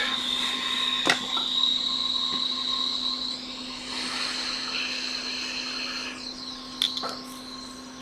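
Hot air rework station blowing steadily while a chip is desoldered from a logic board: a constant airflow hiss with a low hum and a high whine, and a couple of small clicks from the tools.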